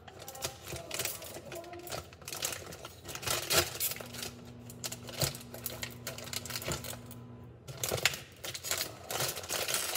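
Thin plastic bread bag crinkling and crackling in irregular bursts as it is worked open by hand. A steady low hum joins in for a few seconds in the middle.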